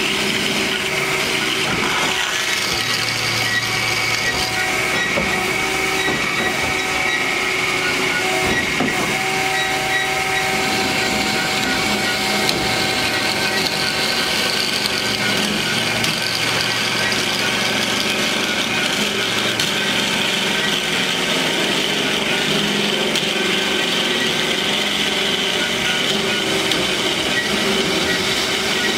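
DoAll C4100A automatic horizontal band saw running through its cutting cycle on metal tube, a steady machine noise with a constant high whine.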